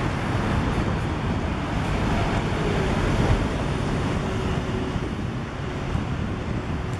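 Steady street traffic noise on a busy city boulevard: cars driving past in an even, continuous rush with no single standout event.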